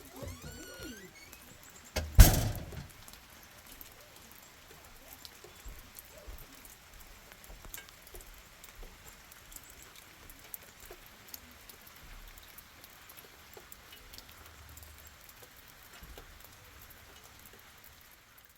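A bird calling briefly at the start, then one loud thump about two seconds in, followed by faint scattered ticks and pattering.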